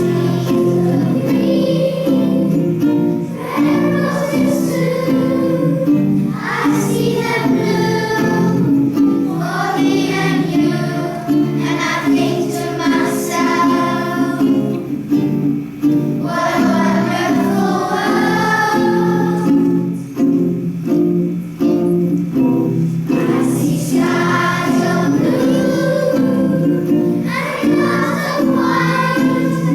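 A group of children singing a song together, with strummed guitar accompaniment.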